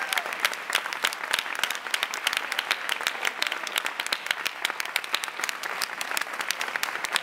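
Audience applause: many hands clapping in a dense, steady spatter.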